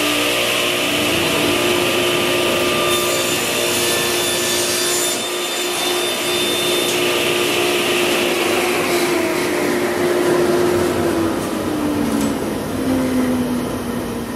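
Table saw running and crosscutting a wooden board with a miter gauge, the blade's cutting noise strongest a few seconds in. The motor is then switched off and winds down, its pitch falling over the last several seconds.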